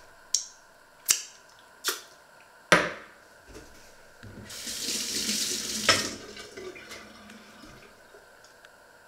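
Four sharp knocks, about one a second, then a kitchen tap runs into a stainless steel sink for about a second and a half and is shut off with a clunk, followed by a few light clicks.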